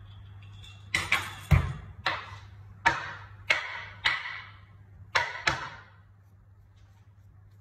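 Kitchen knife chopping a potato on a wooden cutting board: about nine sharp strikes, some in quick pairs, over roughly four and a half seconds. They stop about six seconds in.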